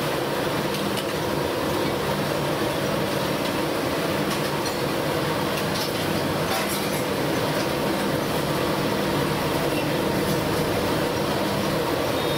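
Vadas deep-frying in a kadai of hot oil: steady sizzling, with a few light clinks of the metal ladle against the pan near the middle.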